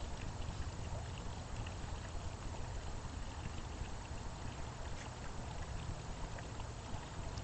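Tiered garden fountain splashing steadily into its basin, with a low rumble underneath.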